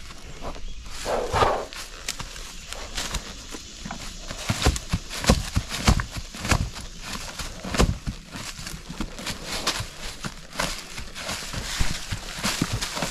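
A riding mule walking, its hooves landing in irregular clops and thuds on the ground.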